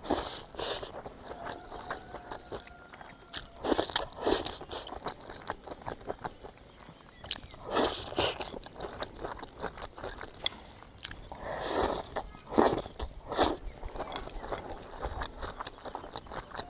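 Close-up eating sounds: crunchy bites and chewing of stir-fried chili peppers and peas. Loud crunches come every few seconds, often two close together, between quieter chewing.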